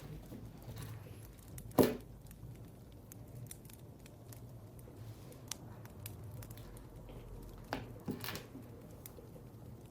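Desk sounds in a small room: paper being handled, crinkling and rustling, over a low steady hum. One loud sharp sound comes about two seconds in, and two softer sudden sounds come near the end.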